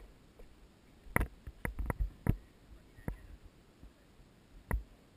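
A string of short, sharp clicks and knocks at uneven intervals, bunched about one to two and a half seconds in, with a single louder one near the end.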